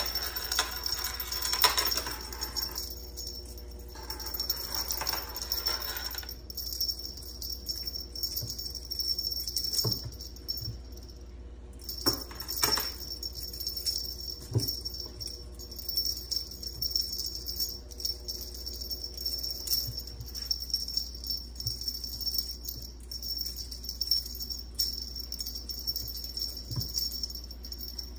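Light jingling and rattling of a cat wand toy with beads, jerked about and batted at by a kitten, with scattered soft knocks on the desk. A steady high-pitched tone runs underneath.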